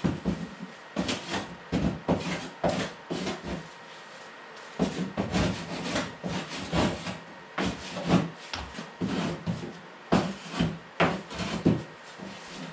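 Hand sanding on a car bumper: short scratchy back-and-forth strokes, a few a second, roughening the surface so epoxy and fibreglass will bond. The strokes pause for about a second near four seconds in, then resume.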